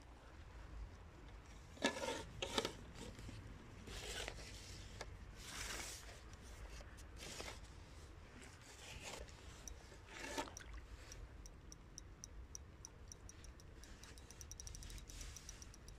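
Rubbing and scraping handling noise with a few sharp knocks, the loudest about two seconds in. Near the end comes a quick run of faint, evenly spaced ticks.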